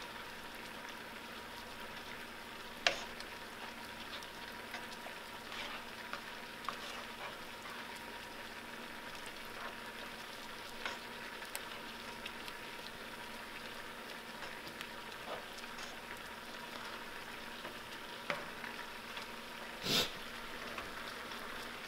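Spiced butter-and-onion seafood sauce sizzling gently in a nonstick pan while it is stirred with a spoon, with light clicks of the spoon against the pan. A louder knock comes near the end.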